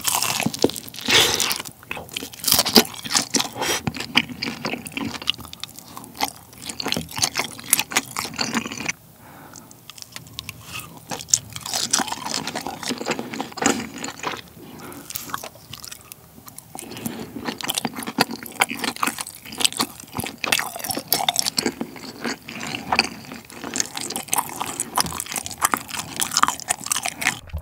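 A man biting and chewing rice cakes and sausages off a sotteok-sotteok skewer topped with ketchup: continuous wet chewing and mouth clicks, with a couple of quieter pauses.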